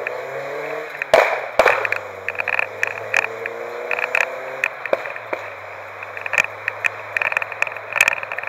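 Open-top car driving at speed, its engine pitch rising as it accelerates, with a break about a second in and a second rise that levels off after about four and a half seconds. Heavy wind buffets the microphone throughout, with frequent crackles and pops.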